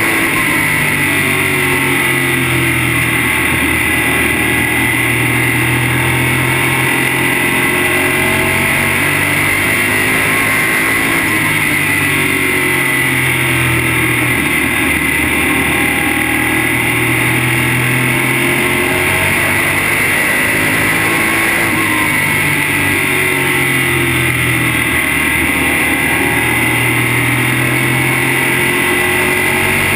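Dirt-track modified race car's V8 engine heard from inside the car at speed, its revs repeatedly rising and dropping every few seconds as the driver gets on and off the throttle around the track, with a steady high whine over it.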